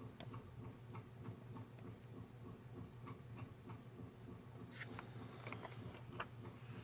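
Faint scattered clicks and light taps of small scrapbooking embellishments and paper being handled on a craft desk, over a steady low hum.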